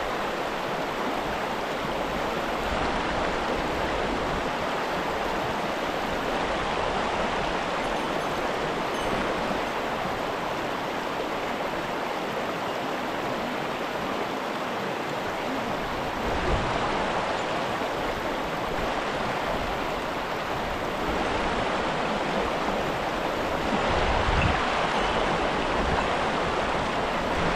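Mountain river water rushing steadily through a gorge, an even wash of noise. A few low bumps come through it, one about sixteen seconds in and more near the end.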